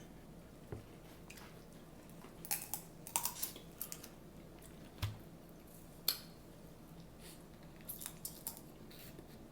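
Scattered small crackles, clicks and wet squishes of a seafood boil being eaten, as shrimp and crab shells are broken and peeled and the food is chewed.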